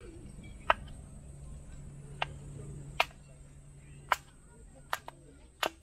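Small hatchet splitting a thin stick of firewood into kindling on a wooden chopping round: seven sharp wooden knocks at uneven spacing, two of them close together near the end.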